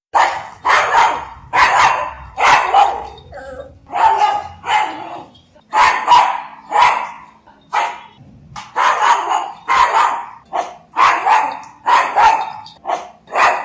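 A pug barking repeatedly, a long run of short sharp barks about two a second with a few brief pauses.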